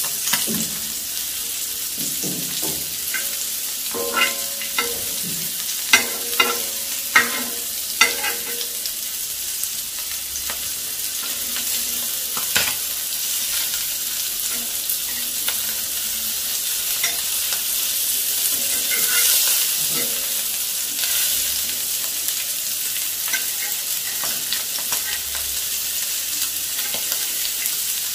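Masala-coated sardines sizzling steadily in oil on a flat dosa griddle, with a metal spatula scraping and clicking against the pan as the fish are turned. A run of sharp clicks comes from about 4 to 8 seconds in, and one more a few seconds later.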